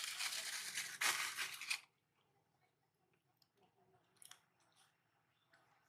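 Dry rustling, crinkling noise for about two seconds that stops abruptly, then a few faint scattered clicks.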